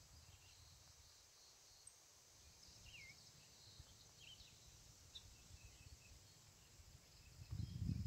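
Quiet countryside ambience: a steady high hiss of grass insects with a few short bird chirps, and a faint low wind rumble on the microphone that turns into loud buffeting near the end.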